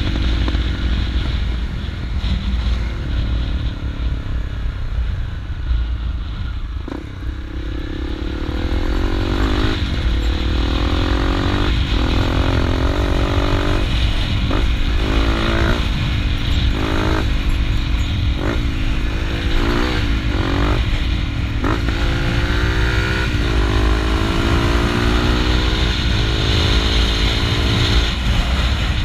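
Honda CRF250L's single-cylinder four-stroke engine under way. Its pitch falls for the first several seconds, then rises and drops again and again as the throttle is worked, each climb cut off sharply. A steady low rumble lies beneath.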